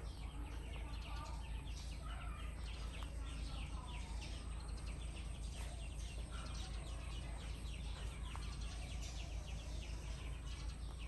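Many small birds chirping continuously in a dense chorus of short, quick chirps, over a steady low hum.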